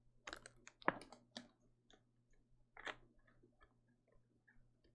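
Faint, scattered clicks of a computer keyboard and mouse, several close together in the first second and a half and another about three seconds in.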